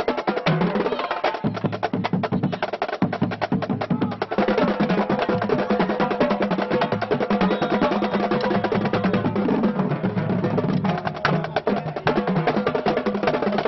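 Marching band drumline playing a fast cadence at close range: rapid snare drum strokes over lower, pitched drum notes.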